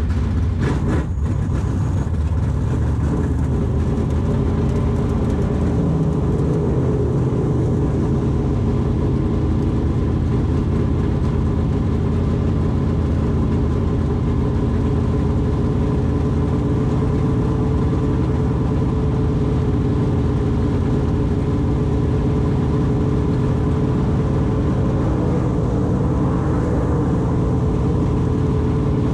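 Pure Stock race car's engine running steadily at low revs, heard from inside the cockpit as the car rolls slowly. There are a few brief knocks about a second in.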